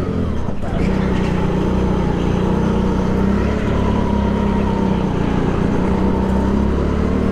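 Go-kart motor running steadily under throttle through a lap, heard from the driver's seat, with a faint higher tone that rises and falls slightly with the revs.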